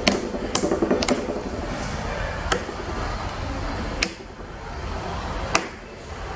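A small child's open hands slapping a hard tabletop: about six sharp smacks, three in the first second and then one every second and a half or so, over a steady low room hum.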